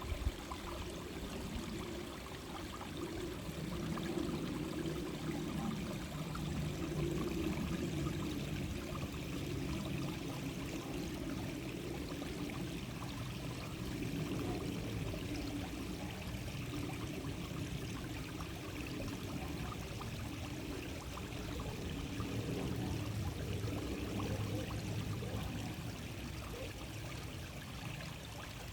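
A shallow stream flowing over stones, a steady babbling and gurgling of water with slow swells in level.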